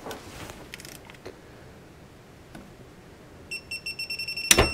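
Digital torque wrench beeping, a rapid run of high beeps lasting about a second as the cam bolt is pulled up to its 30 ft-lb setting. A loud sharp snap follows near the end.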